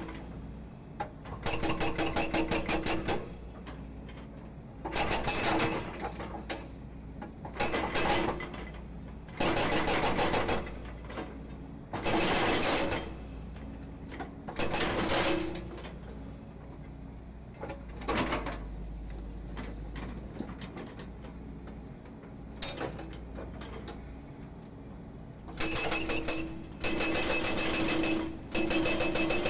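Hydraulic breaker on a Volvo EC210D excavator hammering a concrete pile offcut in short runs of rapid blows, each a second or two long. Between the runs the excavator's diesel engine is heard running, and there is a longer pause in the hammering about halfway through.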